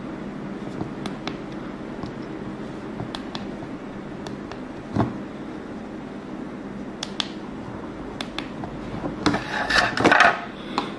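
Handling noise at a tabletop mini oscilloscope: faint scattered clicks over steady room noise, a single thump about five seconds in, and a louder burst of scraping and rustling near the end as the device and camera are moved.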